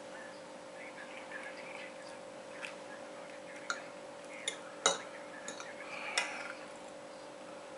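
Metal fork clinking and scraping against a ceramic plate of rice, a few sharp clinks with the loudest about five seconds in. A steady low hum lies under it.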